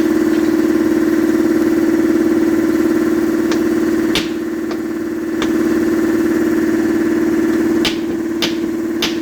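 Shop air compressor running steadily with a loud, even hum. A few short, sharp clicks sound over it.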